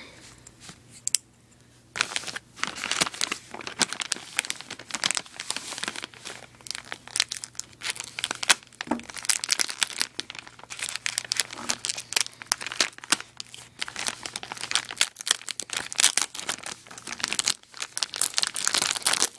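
Plastic poly mailer crinkling and tearing as it is cut with scissors and pulled open by hand. The irregular rustling starts about two seconds in and goes on in uneven bursts.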